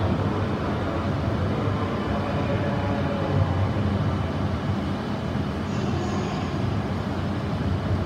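Steady low hum and whir of an E6 series Komachi shinkansen standing at the platform, its onboard equipment running.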